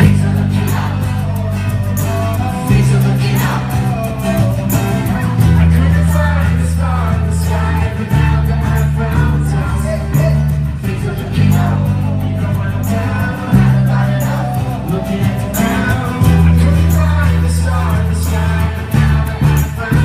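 Live band playing through a PA, heard from the audience: an electric bass holds low notes that change every couple of seconds under acoustic guitar and singing.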